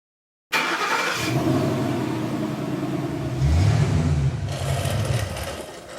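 Car engine starting with a sudden burst, running, then revving up about three seconds in before fading out.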